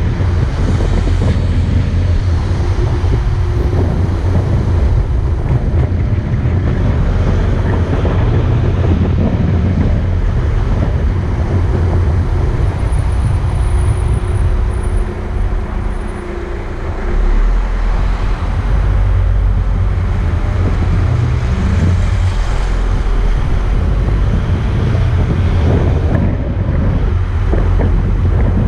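Car driving at low speed, heard from a dashboard-mounted camera: steady engine and road rumble with wind buffeting the microphone, dipping briefly about halfway through.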